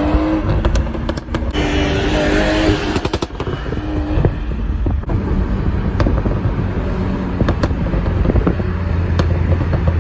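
BMW M340i's B58 3.0-litre turbocharged straight-six exhaust popping and crackling off throttle after a pull, a string of sharp irregular cracks over the low engine rumble. A steadier engine note sounds for a few seconds about a second and a half in.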